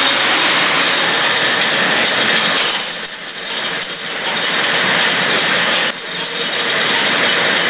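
Woollen mill machinery running with a dense, steady clatter, dipping briefly about three and six seconds in.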